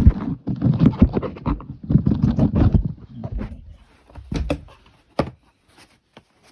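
Rustling, scraping and clicking of packaging as an item is wrestled out of a tight box, busy for about three seconds, then a few sharp knocks before it settles.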